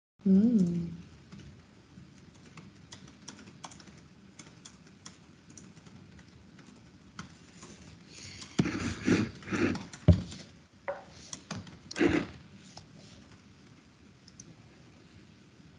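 Computer keyboard typing: scattered key clicks, with a louder, denser run of keystrokes and knocks about two thirds of the way through. A brief pitched tone, rising then falling, right at the start.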